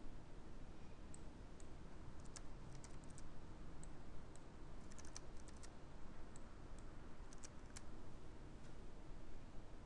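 Faint computer keyboard keystrokes in three short clusters, number entries being typed into software fields.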